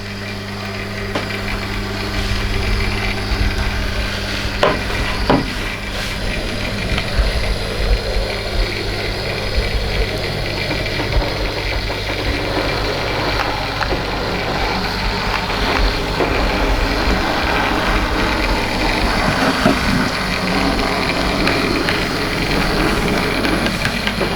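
Model train (Bachmann 64XX pannier tank locomotive with a Hornby autocoach) running along layout track: a steady rumble of wheels on rail and motor, with a couple of sharp clicks about five seconds in.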